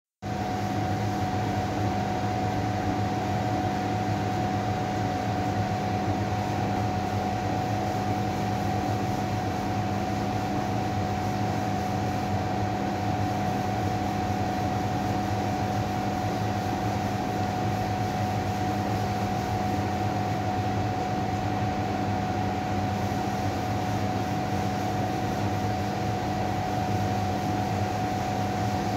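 A steady, unchanging hum and hiss with a constant high tone running through it, like a fan or electrical noise; no commentary, crowd or bat-on-ball sounds are heard.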